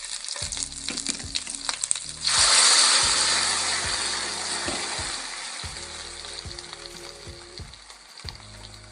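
Hot oil crackling in a pan, then about two seconds in a sudden loud sizzle as the wet ground herb-and-spice paste for thuthuvalai rasam goes in, fading slowly.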